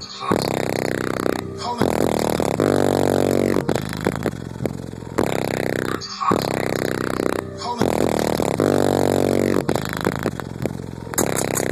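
Loud, bass-heavy music played through a Rockford Fosgate demo vehicle's competition sound system, heard from inside the vehicle. The track has a phrase with sweeping, rising-and-falling tones that repeats about every six seconds.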